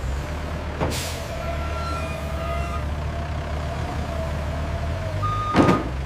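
Forklift and truck engines running low and steady at a loading dock, with a few short warning beeps and two sharp air-brake-like hisses, one about a second in and a louder one near the end.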